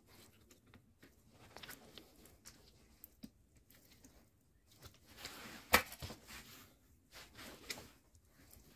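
Small handling noises of bonsai wire being worked around a lemon tree's branches: light rustling and scattered clicks, with one sharp click a little past halfway.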